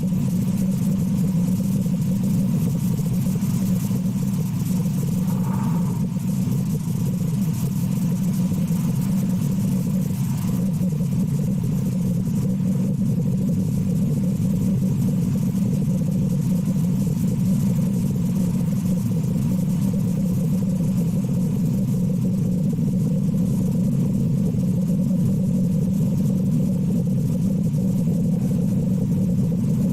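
A steady low engine-like rumble that holds unchanged throughout, with no clear breath or blow standing out above it.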